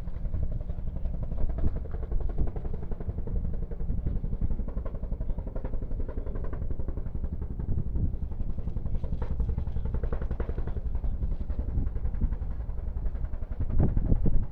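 Firefighting helicopter's rotor beating steadily, a rapid low chop that grows a little louder near the end as the helicopter hovers low over a pond to fill its water bucket.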